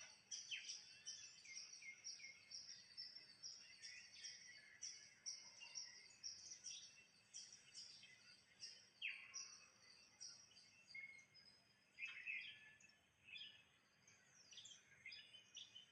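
Small birds chirping: many short, high, rapidly repeated calls, with a few louder downward-sliding calls about nine and twelve seconds in.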